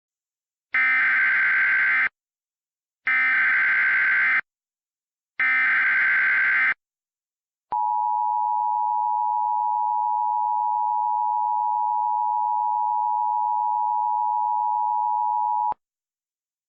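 Emergency Alert System tones: three bursts of the SAME digital header, each about a second and a half long with a short gap between, then the steady two-tone EAS attention signal held for about eight seconds before it cuts off. This sequence marks the start of a new alert message.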